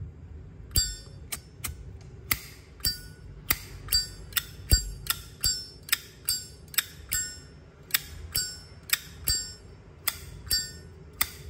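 A 1995 Zippo lighter's lid flicked open and snapped shut again and again: a quick, irregular run of sharp metallic clicks, each with a bright ring. The action sounds good, a crisp open-and-close clink.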